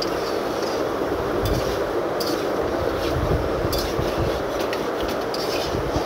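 A spatula scraping and clinking against a pan as chicken pieces are stirred in a thick spice masala, the browning (kosha) stage of a chicken curry. The scrapes come irregularly, a few seconds apart, over a steady rushing hiss.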